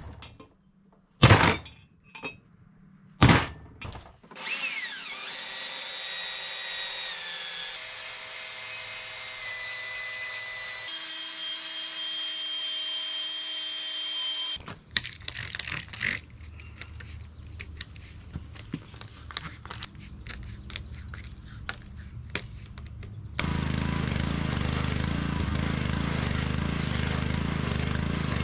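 A hammer striking a punch against a cast differential housing four times, driving out a bearing race. Then a cordless drill runs for about ten seconds, its whine rising at the start and stepping lower twice, followed by irregular rattling and clicks. From about two-thirds of the way in, a gas-engine pressure washer runs steadily.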